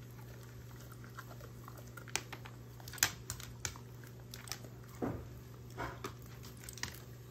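German shorthaired pointer chewing and crunching a treat: irregular sharp crunches and clicks, the loudest about three seconds in, over a steady low hum.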